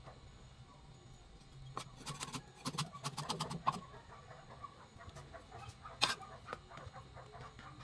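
Cleaver chopping garlic cloves on a wooden chopping block: a quick run of knocks in the middle and one sharp, louder knock about six seconds in as the blade comes down flat on the block.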